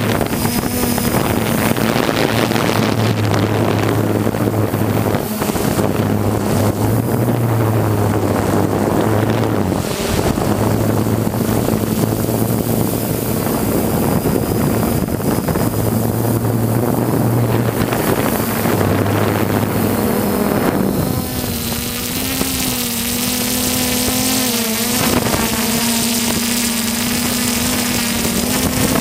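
Quadcopter drone's motors and propellers humming steadily in flight, heard from its onboard camera, with wind rushing over the microphone. About two-thirds of the way through the rushing eases and the hum turns clearer and wavers slightly in pitch.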